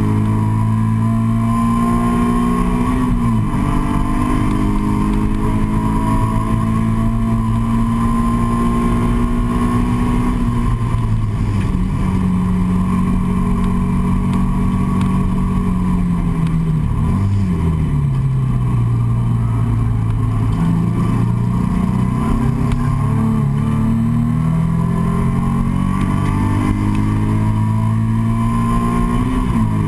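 Nissan 350Z's 3.5-litre V6, heard from inside the cabin, running hard on a race track: it climbs through the revs, breaks for a gear change about three seconds in, eases off mid-way with a quick drop and rise in pitch, then pulls up again to another shift near the end.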